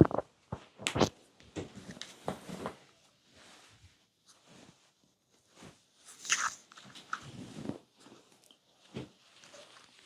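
Stomach growling: irregular gurgles and short crackly squelches, some louder than others, with quieter gaps between them.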